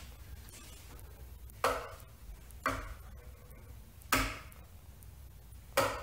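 Four sharp knocks, a second or more apart, each with a short ring.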